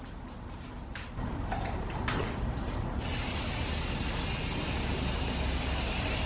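A few faint clicks, then a steady hiss of something being sprayed sets in about three seconds in and keeps going.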